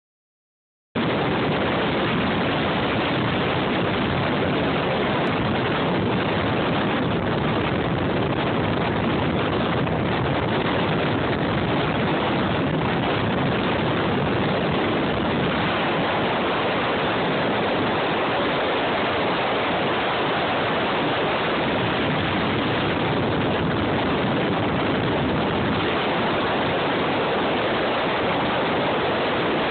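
Steady rush of wind on the microphone and water against the hull of a Triton TR 20X bass boat running at speed under its Mercury 225 OptiMax Pro XS outboard, starting about a second in; the engine's note is buried in the rush.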